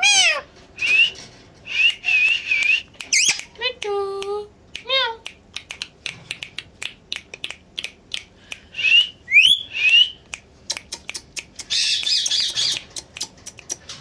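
Indian ringneck parakeet calling: a string of short upward-bending chirps and whistles, with a lower voice-like call about four seconds in. Near the end comes a quick run of sharp clicks and a brief harsh screech.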